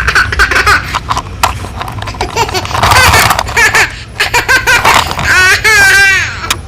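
A small child laughing and squealing in high, rising and falling bursts, with many sharp clicks and knocks in between.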